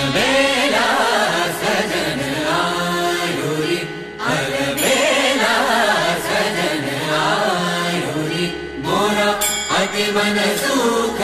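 Background music with a sung melody that glides and wavers, dipping briefly about four seconds in and again near the end.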